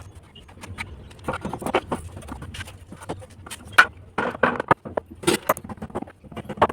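Construction site work during concrete casting: irregular scrapes and knocks over a low steady hum.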